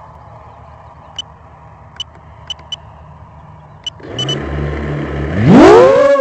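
Storm Loki X4 mini FPV quadcopter's four brushless motors spinning up from idle about four seconds in, then a steep rising whine as it throttles up and lifts off, loudest near the end. Before that, a faint steady background with a few short high ticks.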